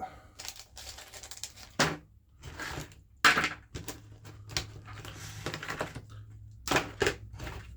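Test leads, probes and clips being pulled out of their box: a run of irregular clicks, clacks and rustles, the loudest about three seconds in.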